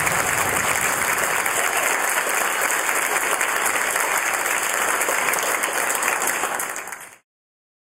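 Audience applause that fades out near the end.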